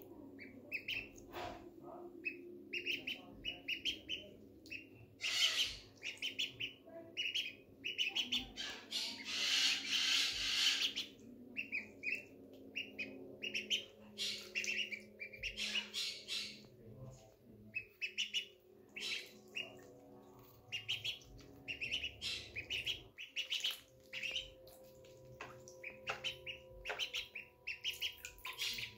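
Magpie ducklings peeping over and over, in quick runs of short, high calls. A louder rushing noise about two seconds long comes near the middle.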